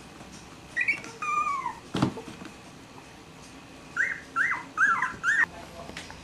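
Young Cavalier King Charles Spaniel puppies whimpering in high-pitched squeaks. A couple of cries come in the first two seconds, one of them long and falling, then a quick run of four short squeaks about four seconds in. There is a single knock about two seconds in.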